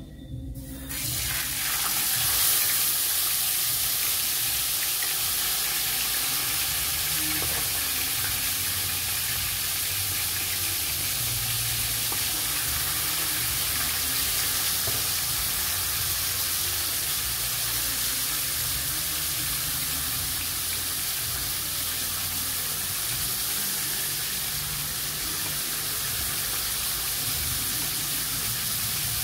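Seasoned fillets frying in hot oil in a frying pan: a sizzle that starts suddenly about a second in, as the first fillet goes into the oil, then holds steady.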